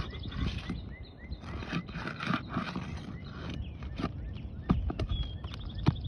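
Scraping and rustling of a roof shingle being worked loose, in two stretches, then a few sharp knocks near the end.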